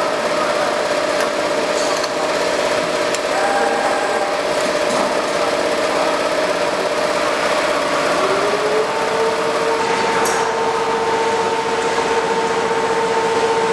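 Industrial quilt-seaming production line running: a steady mechanical whir and hiss over a steady hum, whose pitch shifts to a lower note with a higher one above it about eight seconds in.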